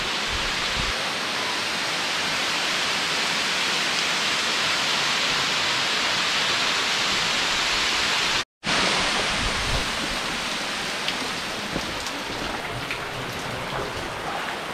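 Waterfall: a steady rushing hiss of falling water. It breaks off for a moment a little past halfway, then goes on somewhat softer with a few faint ticks.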